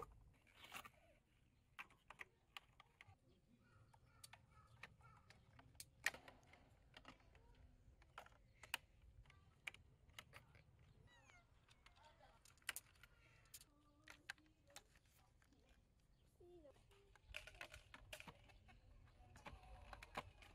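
Irregular light clicks and taps of hard clear plastic marble-run track pieces being handled and snapped together, over a quiet low background.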